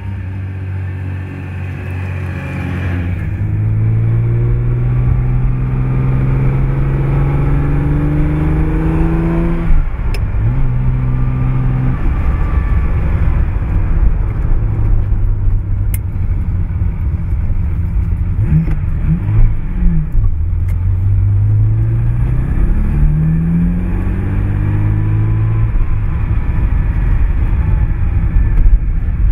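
Ferrari 365 GTB/4 Daytona's 4.4-litre V12 accelerating, its note climbing steadily and then dropping sharply about ten seconds in at an upshift. It holds a steady pitch, falls away briefly past the middle as the throttle eases, and climbs again near the end.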